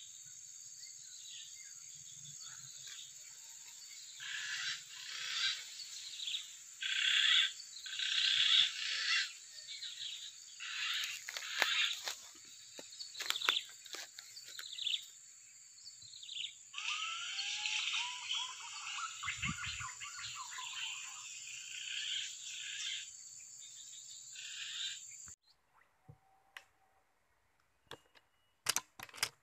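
Outdoor countryside ambience: a steady high-pitched insect drone with many short chirping bird calls over it. About 25 seconds in, it all cuts off abruptly to near silence, followed by a few faint clicks near the end.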